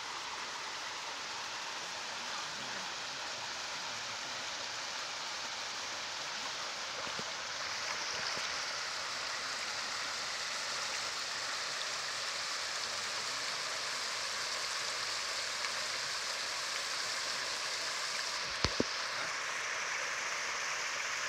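Shallow, clear stream babbling over pebbles and small rocks, a steady rushing that turns a little brighter and louder about a third of the way in as the water spills around rocks. Two short knocks come near the end.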